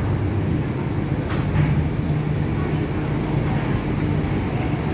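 Mitsubishi Crystal Mover people-mover train standing at the platform with a steady low hum as its platform screen doors open, with one short sharp click about a second in.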